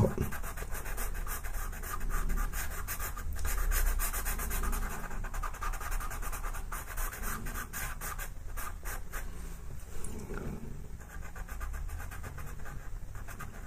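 Black pastel pencil scratching and rubbing across textured pastel paper in quick, repeated short strokes, shading in a solid dark area.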